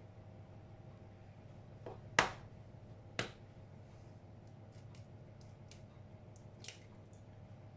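Kitchen handling sounds as eggs and a small glass bowl are moved about on a worktop: two sharp clicks about a second apart, a couple of seconds in, then a few faint light ticks.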